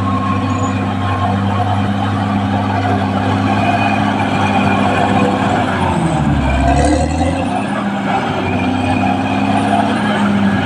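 Caterpillar D6R XL bulldozer's diesel engine running steadily; about six seconds in its note sags lower and then recovers, as the engine is briefly pulled down under load.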